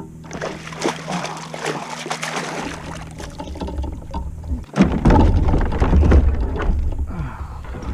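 Water splashing and sloshing around a kayak, with knocks and handling noise. A heavy low rumble comes in about two and a half seconds in and is loudest from about five seconds on.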